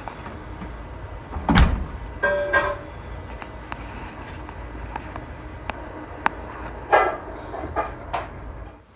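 A loud thump about a second and a half in, then a short high-pitched sound, a few sharp knocks and another brief burst near the end, over a steady low rumble.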